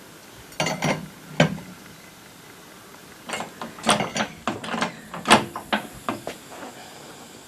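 Irregular clinks and knocks of hand tools and metal car parts being handled during reassembly. There are three sharp ones near the start, then an uneven run of about a dozen through the middle.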